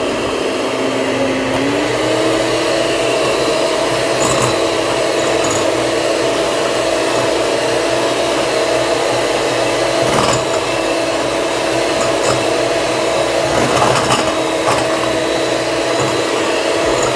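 Electric hand mixer running at speed, its beaters whipping frozen milk in a glass bowl until it doubles in volume. The motor whine rises in pitch about two seconds in and then holds steady, with a few brief clicks along the way.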